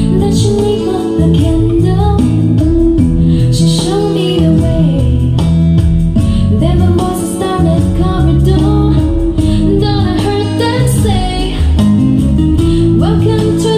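Music: a woman singing over guitar and a steady bass line.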